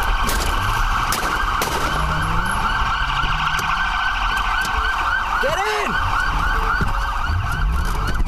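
Police car siren on a fast yelp, warbling up and down about five times a second, heard from inside the cruiser, with the engine revving up underneath. A single lower tone swoops up and back down about five and a half seconds in.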